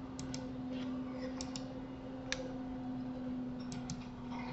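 Computer mouse clicks, several of them mostly in quick pairs, over a steady low hum.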